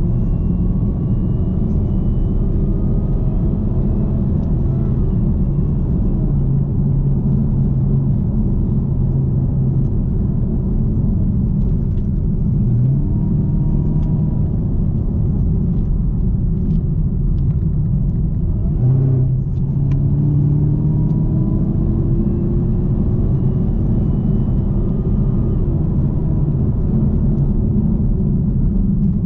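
2018 Camaro ZL1's supercharged V8 engine pulling the car along, its pitch climbing under acceleration and dropping back at gear changes about 13 and 19 seconds in.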